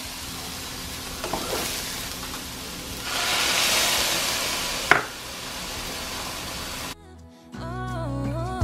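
Broccoli and onion sizzling in hot olive oil in a frying pan, louder for a couple of seconds in the middle, with one sharp knock about five seconds in. The sizzle cuts off about seven seconds in and background music begins.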